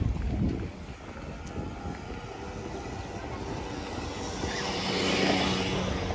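A motor vehicle passing, its engine hum and hiss swelling to a peak about five seconds in, over a steady low rumble of wind on the microphone.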